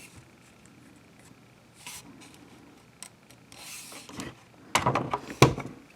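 A G36-pattern carbine being turned over and handled: a little rubbing and a soft slide about two and three and a half seconds in, then several sharp knocks and clunks of the gun being set down and shifted about five seconds in.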